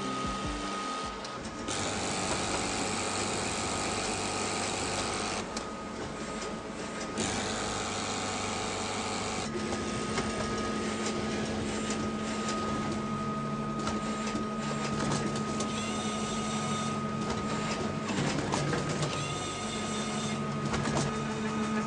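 Booklet-making print-finishing machine running, a steady mechanical whir with a constant high whine. Louder hissing comes twice in the first ten seconds, and a low hum joins about halfway through.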